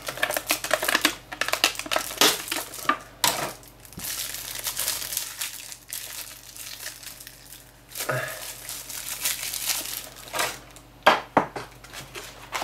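Clear plastic packaging crinkling and rustling in irregular bursts as a model ship is worked out of its plastic bag and tray. A couple of sharp clicks about eleven seconds in.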